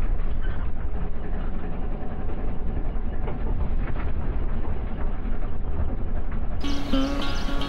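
Steady low rumble of a vehicle driving, heard from inside its cabin, with faint rattles. About a second before the end, plucked-string music starts.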